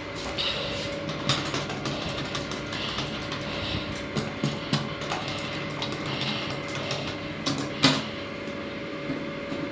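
Goldstar passenger lift car travelling down its shaft: a steady hum with a thin tone and irregular clicks and knocks, one sharper knock near the end.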